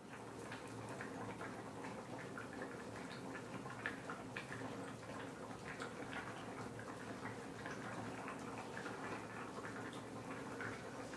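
Pot of vegetable soup simmering on the stove: faint, irregular small bubbling pops and ticks.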